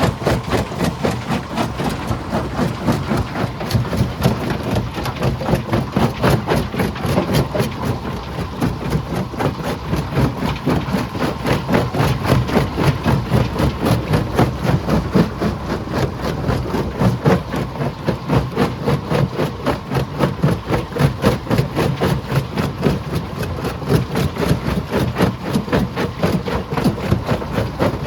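Stone crusher machine running: a steady, rapid clatter of about four to five knocks a second over a low engine drone.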